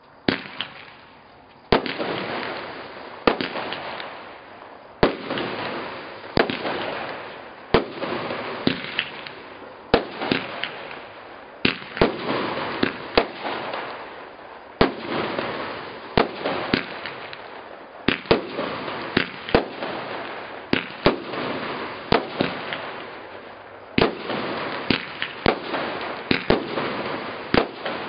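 A 25-shot consumer fireworks cake firing shot after shot. Each shot is a sharp bang, coming roughly every second and a half, followed by the crackle and hiss of a bursting palm shell as it fades. Near the end the bangs come faster and closer together.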